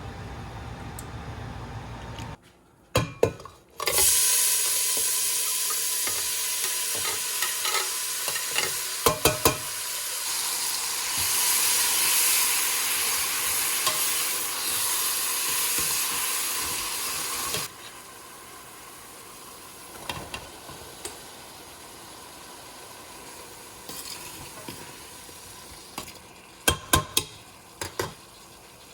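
Food sizzling in a hot pot, with a few sharp clicks and knocks. The sizzle cuts off suddenly about two-thirds of the way through, leaving a quieter hiss and a handful of clicks near the end.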